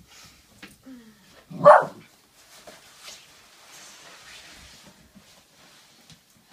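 A pet dog gives one loud greeting bark about two seconds in, just after a short falling whine, then a soft rustle follows for a couple of seconds.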